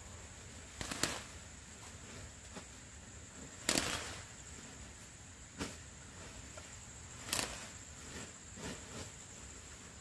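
About five sharp knocks, irregularly spaced over ten seconds, the strongest a little under four seconds in, over a steady high chirring of crickets.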